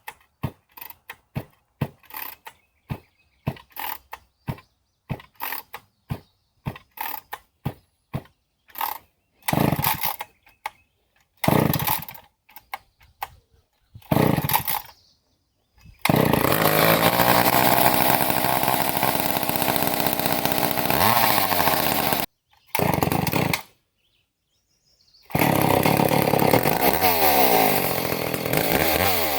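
Vintage McCulloch 10-10A two-stroke chainsaw being started: a run of short quick rattles, then three brief bursts of firing, then the engine catches and runs, its pitch rising and falling with the throttle. The running breaks off sharply twice and picks up again.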